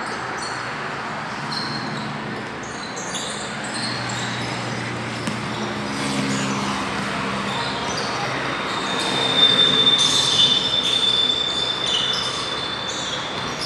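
Basketball game sounds: a ball bouncing on the concrete court with scattered short knocks, over the low murmur of the court. A low vehicle rumble passes in the middle. A thin high steady squeal lasts about three seconds near the end.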